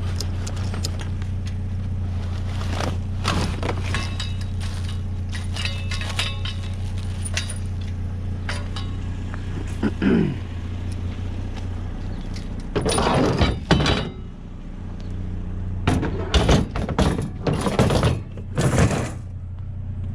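Pickup truck engine running with a steady low hum, with a short falling squeak about halfway and loud bursts of clanking and banging later on, as of metal objects knocking together.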